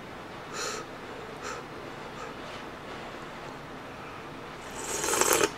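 A few short, soft slurps of hot chicken soup broth from a spoon, then a longer, louder slurp about five seconds in.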